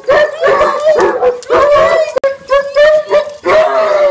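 Dogs whining and howling, about six loud pitched cries in quick succession: the excited greeting of dogs that missed their owner.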